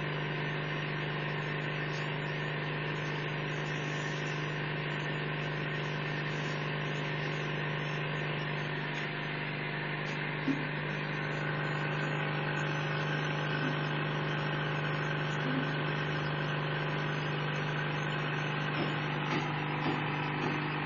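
Steady machine hum: a constant low drone with an even hiss over it, unchanging throughout, with one small tick about ten and a half seconds in.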